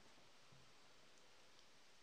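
Near silence: a faint steady hiss with a few tiny ticks from sliced sausage and eggs frying gently in a pan.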